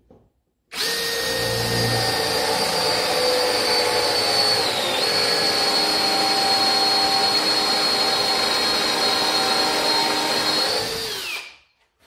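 Cordless drill boring a 26 mm hole in a wooden board with a Bosch bit. The motor starts about a second in and runs steadily for about ten seconds, its pitch dipping briefly midway, then winds down and stops near the end.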